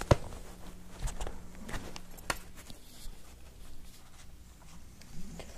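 Faint handling noise: a few light clicks and soft rustles as hands adjust a full-face motorcycle helmet being worn.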